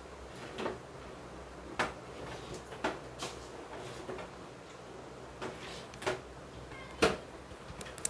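A handful of light knocks and clicks at irregular intervals, the sharpest about seven seconds in, over a faint steady low hum.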